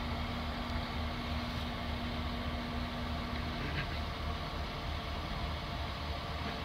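Heavy vehicle engine running steadily nearby, a low even rumble, with a steady hum over it that stops a little over halfway through.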